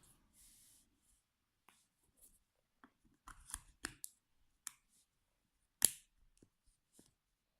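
Scattered small clicks and taps from handling a GoPro Hero 4 Silver action camera, with a dense cluster of them between about three and four seconds in and one sharper click near six seconds.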